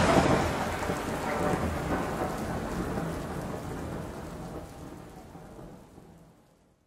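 Rain falling steadily with a low rumble of thunder, fading out gradually to silence over about six seconds.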